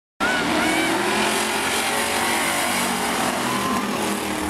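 Several battered demolition race cars' engines running together on a paved oval, cutting in suddenly just after the start, with short tire squeals as they slide through a turn.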